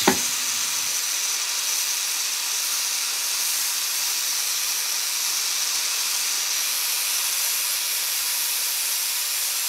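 Angle grinder grinding down a spinning steel axle, a steady hissing grind with a thin high whine above it, taking the axle down to size for a bearing fit.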